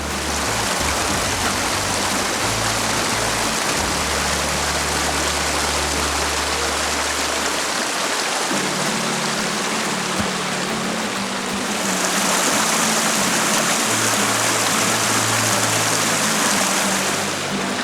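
Steady rushing of flowing water, a stream, under background music with low bass notes that change in steps. The water noise grows brighter and louder for a few seconds about two-thirds of the way through.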